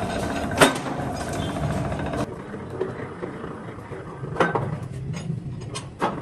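Three-roll plate bending machine running, its drive gears grinding, with sharp metal clanks about half a second in, at about four and a half seconds and near the end. The noise is louder in the first two seconds, then drops.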